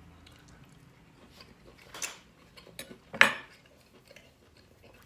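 Knife and fork clinking and scraping on a plate while cutting a piece of cooked steak, with a few light clicks and two louder clinks about two and three seconds in.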